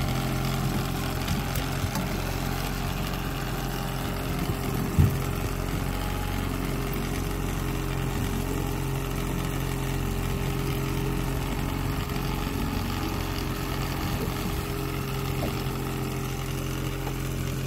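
Boat's outboard motor running steadily at low speed, with one short knock about five seconds in.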